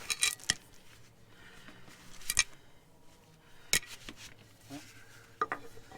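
Scattered metal clinks and taps of a filter wrench being fitted onto a tractor's hydraulic filter: about five sharp clicks, a second or so apart, with quieter scraping between them.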